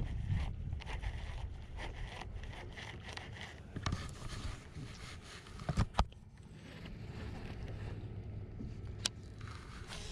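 Scraping and knocking handling noise with a few sharp clicks, over a low steady hum that comes in about seven seconds in.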